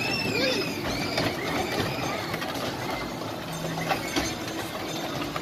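Small steel kiddie roller coaster train rattling and clacking along its track. A few high, arching squeals come in the first two seconds or so.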